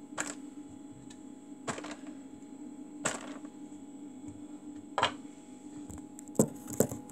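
Kitchen knife cutting small button mushrooms into quarters, each cut ending in a sharp knock on the board, about one every second and a half, with two louder knocks close together near the end, over a steady low hum.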